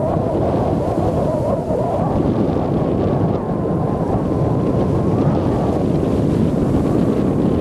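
Strong wind buffeting the microphone over surf breaking on a beach: a steady, heavy rush of noise.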